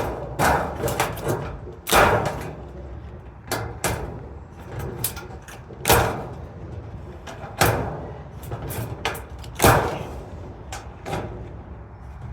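Steel raised-bed panels clanking and knocking as they are handled and fitted together: a run of sharp metallic bangs every second or two, with lighter knocks in between.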